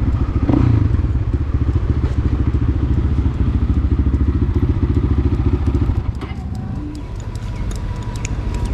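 Motorcycle engine running as the bike is ridden, its firing pulses steady, then easing off about six seconds in; a few light clicks and clatter follow near the end.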